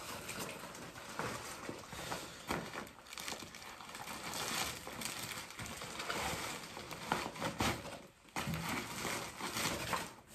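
Rustling and crinkling of a tripod's black carry bag and clear plastic wrapping as the tripod is pulled out and handled, with irregular scrapes and light knocks.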